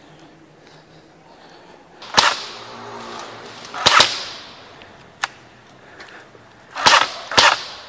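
Airsoft gunfire: four loud, sharp cracks, each with an echoing tail, and a smaller crack in between.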